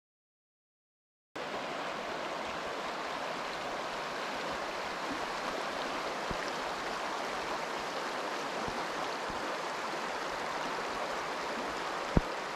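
Steady rush of running water from a glacial stream or falls, starting about a second and a half in after dead silence. A single sharp click sounds near the end.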